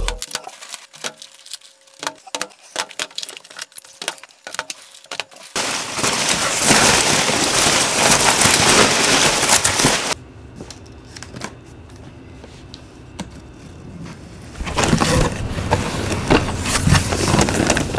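Foam packing peanuts and plastic packaging rustling and crackling as hands dig through a shipping box. The first few seconds are scattered sharp clicks, then come two long stretches of dense, loud rustling, with quieter crackling in between.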